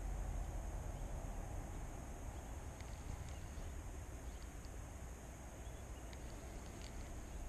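Low, steady wind rumble on the microphone of a rod-mounted or handheld camera, with a few faint, short high ticks scattered through it.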